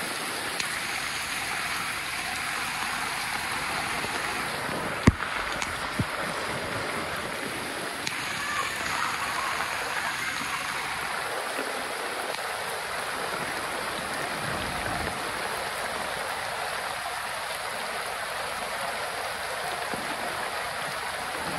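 Steady rush of heavy rain falling onto street floodwater, mixed with water churned by a cycle rickshaw wading through it. A sharp knock comes about five seconds in, and a fainter one a second later.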